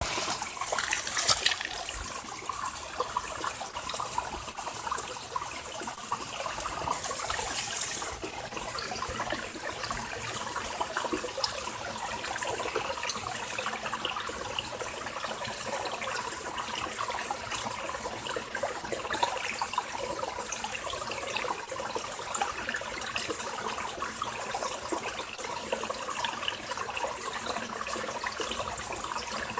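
Running water in a ravine stream, a steady trickling, splashing hiss that is slightly brighter and louder for the first eight seconds.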